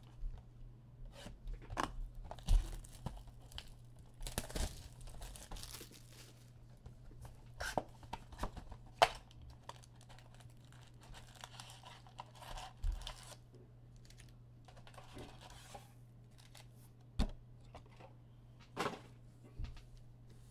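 Wrapping torn open and crinkled as a box and packs of Donruss Elite football trading cards are opened, with scattered light clicks and taps from card handling over a steady low hum.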